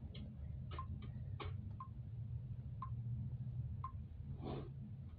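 Clock ticking about once a second, with a few other light clicks over a low steady hum.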